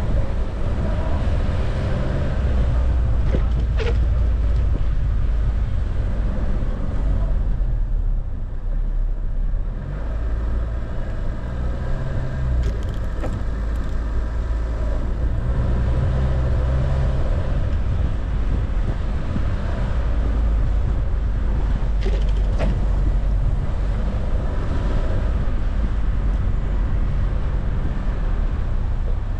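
A car driving slowly over a snow-covered street: a steady low rumble of engine and tyres on packed snow. It eases off for a couple of seconds about eight seconds in, and a few short clicks come through.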